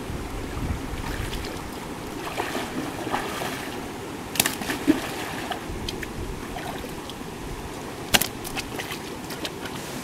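Shallow stream running over rocks, with hands splashing and groping about in the water; a few sharp splashes stand out, the loudest about four and a half and eight seconds in.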